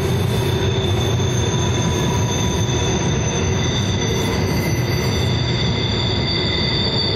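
Empty coal hopper cars rolling past on a sharp curve, with a double-stack container train on the next track: a steady rumble of wheels and several high, steady squealing tones from wheel flanges grinding against the rail on the curve.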